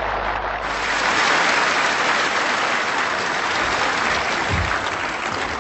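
Audience applauding: a dense, steady clapping that eases off slightly toward the end, with a single dull thump about four and a half seconds in.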